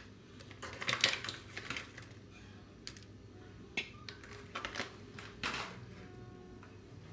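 Bay leaves crackling and rustling as they are handled and dropped in: a cluster of crisp crackles about a second in, then scattered clicks and rustles.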